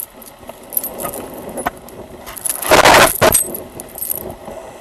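Small metal pieces jingling and clicking, like keys or duty-belt gear moving with the officer. Nearly three seconds in there is a loud rustle, as of clothing brushing the body camera's microphone.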